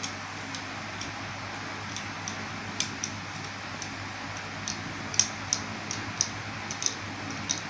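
Irregular small, sharp metallic clicks and taps, a few at first and then more often from about three seconds in, as needle-nose pliers work the coil on a rebuildable atomizer mounted on a metal box vape mod.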